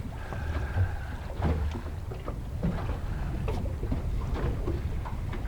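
Water slapping and lapping against a small boat's hull, with a steady low wind rumble on the microphone and scattered small knocks.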